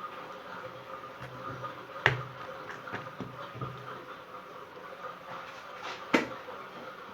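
Kitchen handling sounds: a few sharp knocks of dough and cookware being handled, the loudest about two seconds in and about six seconds in, over a steady low hum.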